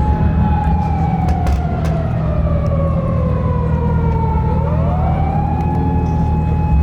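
A siren wailing: a held tone that slowly sinks in pitch, then swings quickly back up to the held pitch about four and a half seconds in. A vehicle engine idles steadily underneath.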